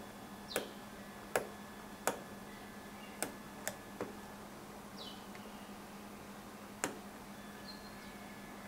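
Small sharp clicks of the DIP switches on an auto-gate remote control's circuit board being flipped one by one with a pointed tool, setting its code to match the old remote. About eight clicks at uneven intervals, most in the first four seconds and one more near the end.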